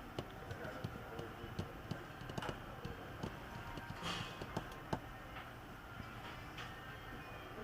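Irregular light clicks and taps of a laptop being handled and its keys pressed.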